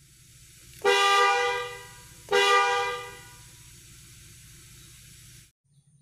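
Snail-type (keong) car horn sounding two short blasts, about a second in and again a second and a half later, each tailing off as it stops.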